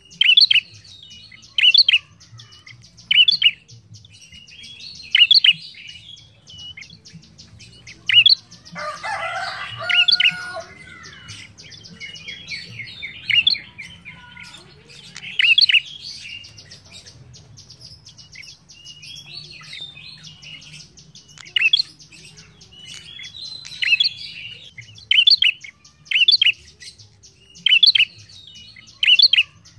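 Caged ashy tailorbird calling: loud, sharp chirps repeated in short bursts about every second or two, with a longer, fuller bout of calling about nine seconds in.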